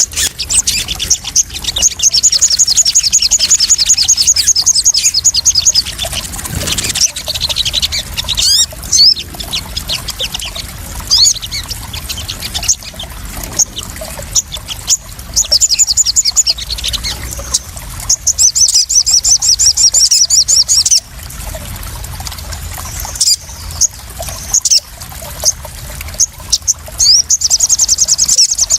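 Sogon (sunbird) song: three long, rapid, high-pitched trills with short sharp chirps between them, played as a lure, over splashing, trickling water.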